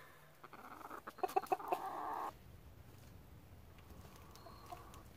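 Backyard chickens clucking, with a quick run of short, sharp clucks about a second in. About halfway through the sound drops suddenly to a quieter outdoor background.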